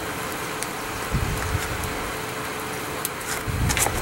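Steady mechanical hum, with a few faint crackles and pops from borax flux melting on a red-hot steel cable. Two low thuds fall about a second in and near the end.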